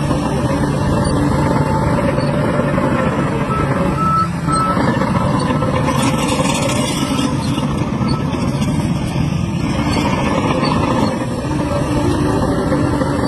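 Heavy dump truck diesel engines running steadily, with a reversing alarm beeping in the first couple of seconds.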